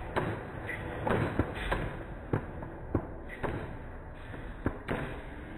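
Fireworks display: aerial shells booming about ten times at uneven intervals, some in quick succession.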